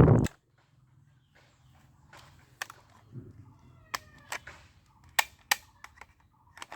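A loud thump right at the start, then scattered sharp clicks of a toy blowback gun being worked. About four seconds in comes a short cry falling in pitch, like a cat's meow.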